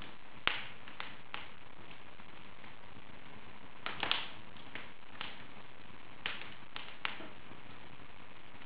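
Wood fire burning in an open fireplace: a steady soft hiss with irregular crackles and pops, the sharpest about half a second in and a quick cluster of snaps around the middle.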